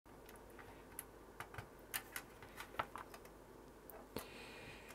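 Small sharp clicks and taps from a turned-pin IC socket being handled and pressed against a circuit board's chip holes. There are about a dozen irregular light clicks, the loudest near the middle.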